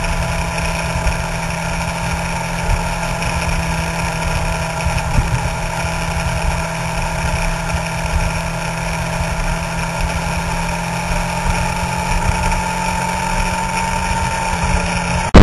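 Suzuki GSX-R sportbike's inline-four engine running at a steady highway cruise, heard from a camera under the tail, holding one even note with wind buffeting the microphone. The sound cuts off abruptly just before the end.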